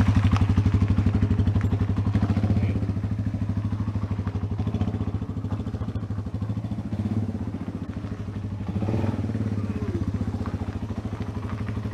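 Yamaha XT225's single-cylinder four-stroke engine running just off idle in first gear through its stock exhaust, the bike creeping along at walking pace with a little throttle. The firing pulses stay steady and even throughout.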